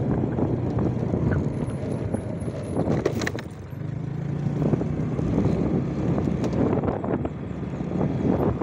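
Motorcycle engine running steadily as the bike rides along a bumpy dirt road, with a brief drop in engine sound about three and a half seconds in before it picks up again.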